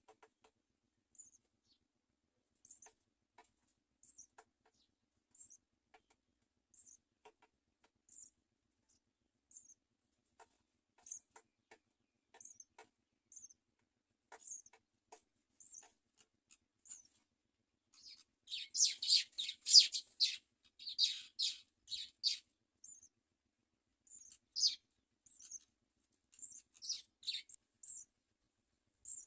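House sparrow nestlings cheeping: faint high single cheeps about once a second, then, about 18 seconds in, a few seconds of loud, rapid begging calls, typical of chicks being fed, before the calls thin out again.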